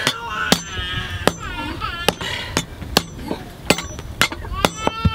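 Hand hammer striking an iron axe head held in tongs on a small iron stake anvil: a series of sharp metallic strikes, about nine in five seconds, a little under two a second.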